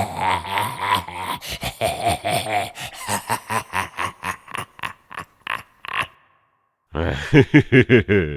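A man laughing: a long laugh breaks into quick rhythmic "ha" pulses that trail off, then after a short pause a fresh burst of loud "ha-ha" laughter starts near the end.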